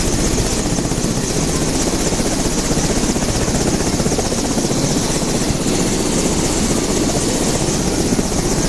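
Two-bladed light helicopter running on the ground with its main rotor turning: a rapid, even low blade chop under a steady high engine whine.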